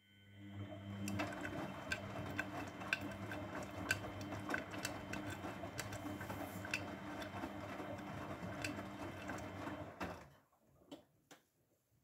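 Grundig front-loading washing machine tumbling its drum during the wash: the motor hums under water sloshing and scattered clicks. It starts at once and stops suddenly after about ten seconds, followed by a couple of faint clicks.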